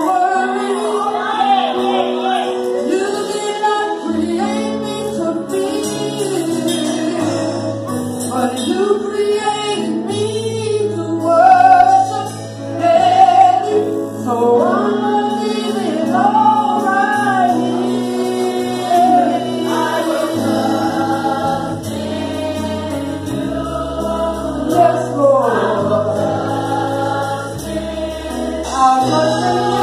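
A small group of women singing a gospel song together, over an accompaniment that holds long bass notes and changes them in steps.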